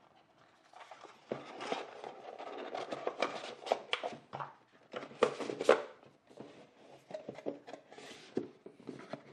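Cardboard boxes and packaging being handled: an irregular run of taps, scrapes and rustles, loudest about five and a half seconds in.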